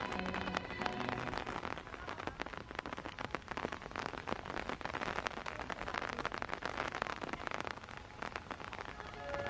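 Light rain falling: a dense, steady crackle of raindrops hitting nearby surfaces.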